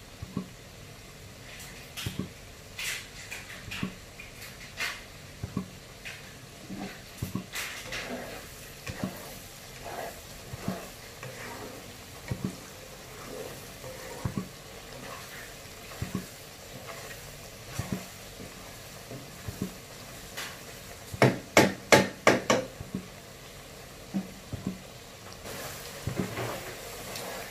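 A spatula stirring and scraping food in a pan, knocking against the pan at irregular moments, with a quick run of about six sharp knocks about three-quarters of the way in.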